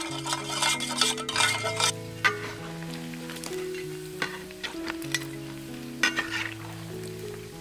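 A spoon stirring sauce in a stainless steel bowl, then pork ribs sizzling in hot oil in a wok, with a few sharp clinks of a metal strainer and spatula against the wok. Soft background music with held notes plays underneath.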